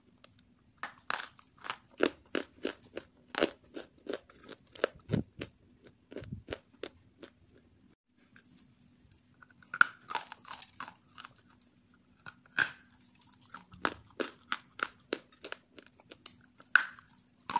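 Hard, half-roasted grey clay being bitten and chewed: a quick series of sharp, dry crunches, two or three a second, with a short break about eight seconds in.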